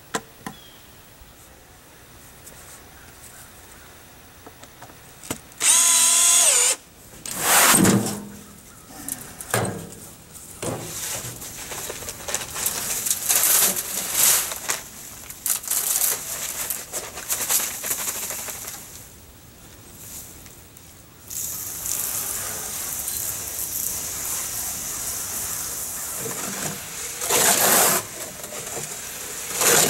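Dry concrete mix being poured from bags into a wheelbarrow and worked with a hoe: loud bursts of gritty rushing and scraping, coming in separate bursts in the first half and running steadily for most of the last eight seconds.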